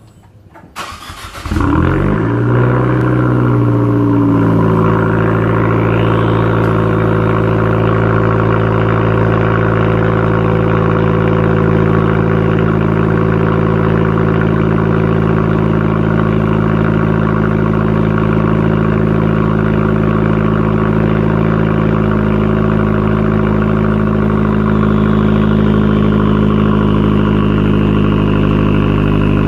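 A 2014 Fiat 500L's 1.4-litre turbocharged four-cylinder is cranked and catches about a second in. Its revs drop back within a couple of seconds, and it settles into a steady idle through a straight exhaust with both the muffler and the resonator removed.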